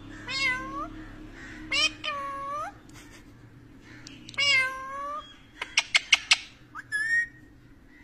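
Rose-ringed parakeet calling: three drawn-out calls that dip and then rise in pitch, then a quick run of short sharp chirps and a rising call near the end.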